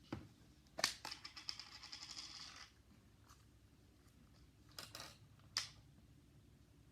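Faint clicks and taps of small objects handled on a tabletop, with a quick rattling run of clicks about a second in and a few single clicks near the middle.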